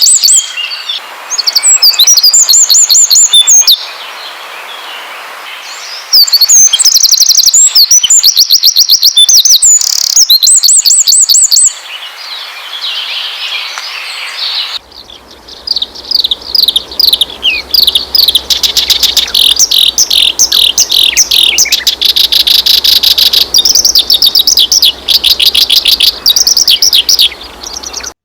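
Songbirds singing loud, fast, repeated chirps and trills, with a sudden switch about 15 seconds in to another stretch of rapid trilling over a faint low hum.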